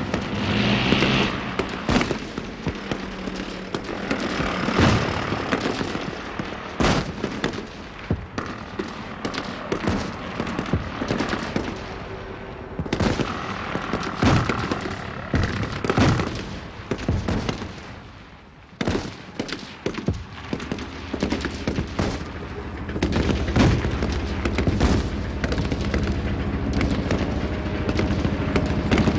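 Battle sound effect of an infantry attack: dense, irregular gunfire with rapid bursts and booms. There is a short lull about two-thirds of the way through, and a heavier rumble near the end.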